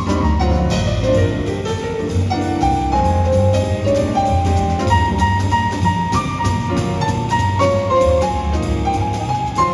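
Live jazz with a grand piano carrying a single-note melodic solo over pizzicato double bass and drum kit with regular cymbal strokes. The tune is a jazz waltz.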